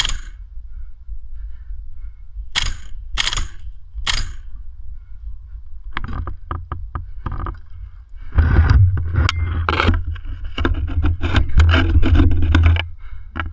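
Scraping and rustling from a helmet-mounted camera's microphone as the wearer moves, with a few sharp knocks early on, a quick run of light clicks about six seconds in, and heavy low rumbling with scraping from about eight seconds in.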